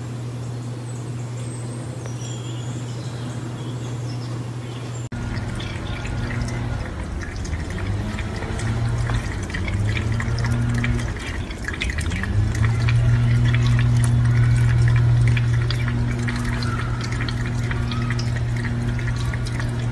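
Water splashing and dripping in a stainless-steel sink as a cat laps from a glass of water, with many small ticks over a steady low hum. It starts about five seconds in, after a quieter stretch.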